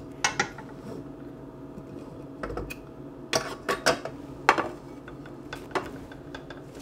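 Utensils and a glass pot lid clinking and knocking against cookware as food is spooned from a crock pot: a scattering of separate sharp clinks, several of them close together in the middle.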